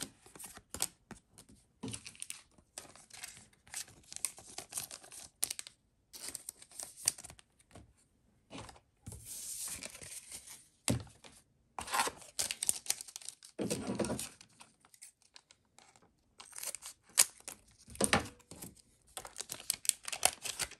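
A MetaZoo Wilderness trading card booster pack being torn open, its wrapper crinkling, with irregular rustles and taps of the cards being handled.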